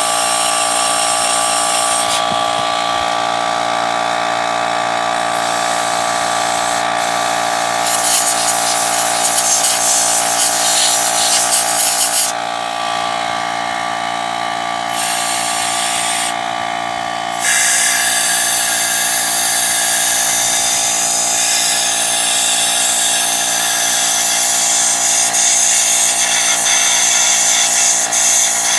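Air compressor motor running with a steady whine while an air blow gun hisses in long blasts with short pauses, the longest unbroken blast over the last ten seconds. The blasts clear bad gas and water out of a lawn tractor's carburetor and fuel passages.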